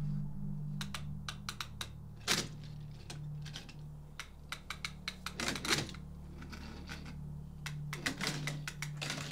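Irregular light clicks and taps, with louder clusters about two seconds and five and a half seconds in, over a low pulsing hum.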